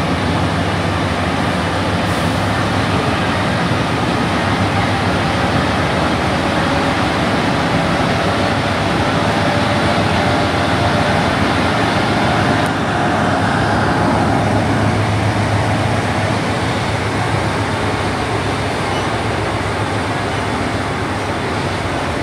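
Alstom NS-93 rubber-tyred metro train running at speed between stations, heard from inside the car: a steady rolling roar of the tyres on the track with a constant motor hum, shifting slightly about halfway through.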